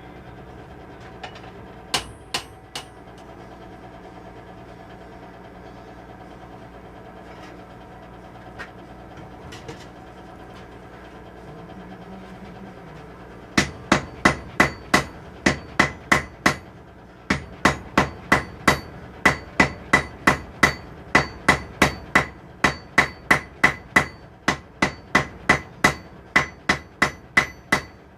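Blacksmith's hammer striking hot steel on an anvil, drawing out the reins of forged tongs: a few scattered blows, then from about halfway a steady run of ringing blows, about two a second, with one short pause. A steady low hum runs underneath.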